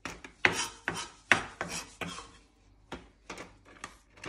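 Chef's knife blade scraping chopped parsley across a wooden cutting board and into a plastic zip-top bag: a quick series of short scrapes and knocks, loudest in the first couple of seconds, then lighter and more spaced out.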